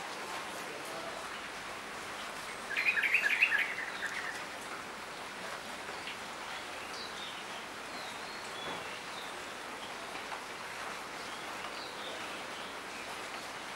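Steady rain falling, with birds chirping now and then. About three seconds in, a bird gives a loud, rapid chattering call for about a second.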